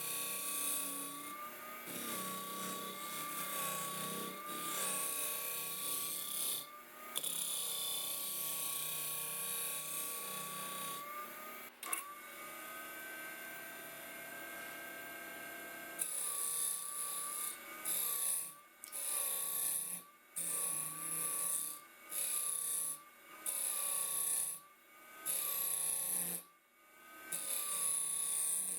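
A power tool's electric motor running with a steady, slightly wavering whine while a tool scrapes against the work. From about halfway, the sound cuts out briefly every second and a half or so.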